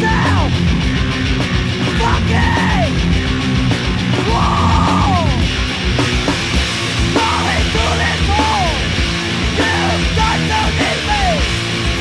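Loud, raw punk rock recording with yelled vocals over dense, heavy instrumentation, with falling yelps or slides recurring every second or two.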